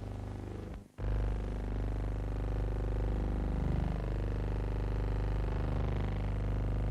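Steady low droning hum with many overtones, which cuts out for an instant just before a second in.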